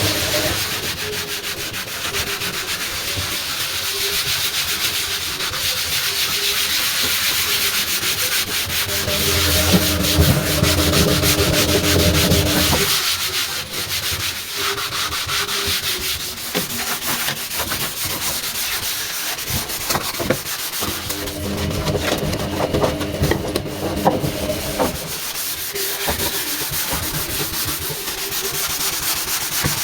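Sponge and rag scrubbing a washing machine's surfaces, a continuous rubbing hiss. Twice a pitched tone joins the rubbing for a few seconds.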